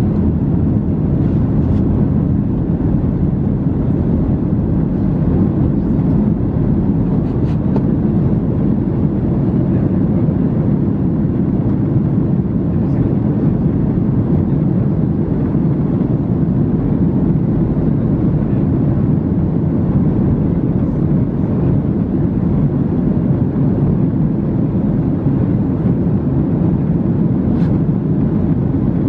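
Steady cabin noise inside an Airbus A321neo climbing after takeoff: an even, deep rush of airflow and the Pratt & Whitney geared turbofan engines at climb power.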